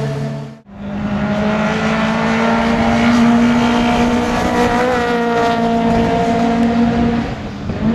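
Ford Fiesta Zetec S engine held at high revs as the car runs past on a race circuit, its pitch slowly rising, with a brief wobble in pitch about five seconds in. It fades a little near the end. A sharp break in the sound comes just over half a second in.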